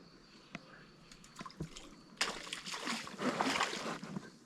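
Water splashing as a hooked crucian carp thrashes at the surface. The splashing starts about two seconds in, after a few faint clicks, and goes on for about two seconds.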